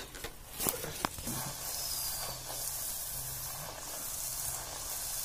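Puri deep-frying in hot oil in a metal karahi, sizzling steadily. Two sharp clicks come just before the sizzling starts, about a second in.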